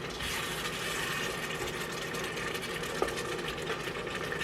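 Seasoned ground beef and broth sizzling and simmering in an electric pot as the liquid reduces, with one light utensil tap about three seconds in.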